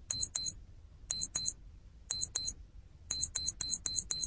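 High-pitched electronic alarm beeping in pairs about once a second, then about three seconds in quickening to an even run of about four beeps a second.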